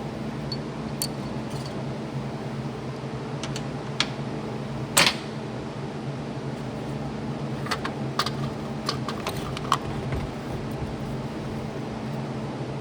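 Scattered short clicks and knocks of work on the truck, the loudest about five seconds in and a quick run of them between about eight and ten seconds, over a steady low hum.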